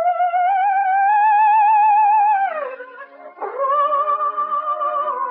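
Operatic soprano holding high notes with a wide vibrato over the orchestra, sliding down about two and a half seconds in and then taking up a new held note. The sound is thin and cut off at the top, as in a 1936 shortwave broadcast.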